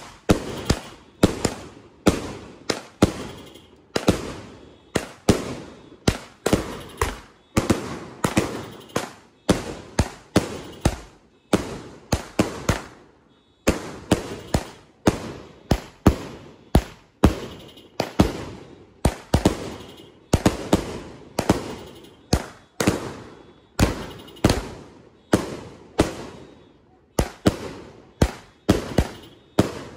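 A 100-shot 'Wild Side' firework cake firing shot after shot, about two sharp reports a second, each ringing briefly as it dies away. There is a short pause about halfway through.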